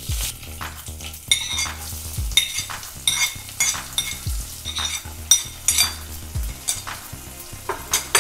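Chopped garlic, green chillies and curry leaves sizzling as they are dropped into hot mustard oil in a wok, with a spoon clicking against the serving plate as it pushes them off.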